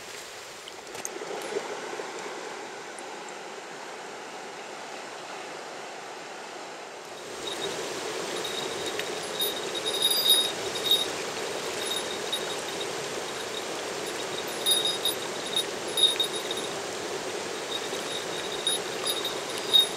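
A shallow river rushing over stones, a steady wash of water that comes in louder about seven seconds in, with short high clinking notes over it now and then.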